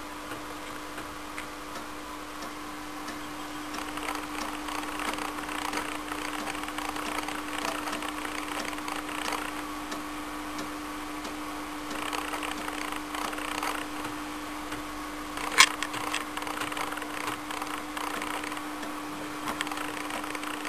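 TRS-80 Model 4's 5.25-inch floppy disk drive at work: the head stepping and seeking in irregular runs of ticks and clicks over a steady hum, with one sharp, louder click about fifteen seconds in.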